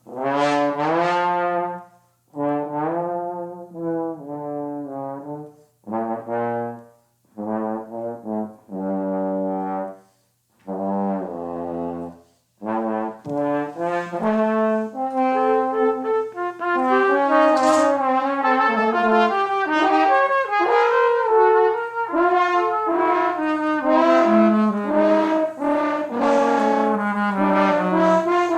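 Trumpet and trombone improvising: short separate phrases with silences between them, then from about halfway in both play at once without breaks, their lines overlapping.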